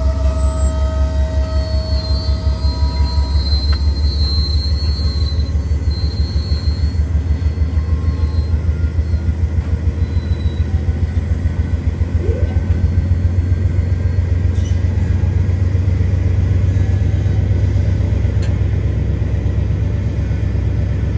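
Freight train's covered hopper cars rolling slowly past with a steady low rumble. High-pitched wheel squeal rings out over the first several seconds.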